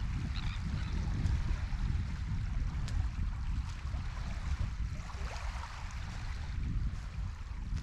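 Steady low rumble of wind on the microphone over sea water washing, with a few faint seagull calls near the start and about two-thirds of the way in.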